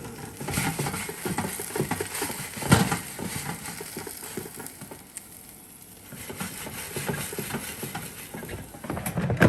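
Air fryer basket being shaken and chicken bites pushed around in it, with irregular rattling and clatter, a sharp knock about three seconds in and another near the end.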